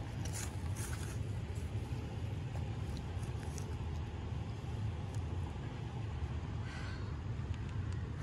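Steady low rumble of wind buffeting the microphone, with a few short rustles and scrapes from the cast net being handled.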